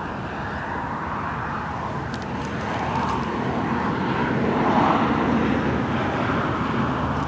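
A steady engine drone that grows louder to a peak about five seconds in, then eases off.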